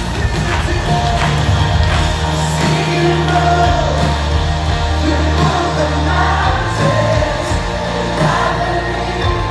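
A worship band playing live through a concert sound system: drum hits over held low bass notes, with a voice singing the melody.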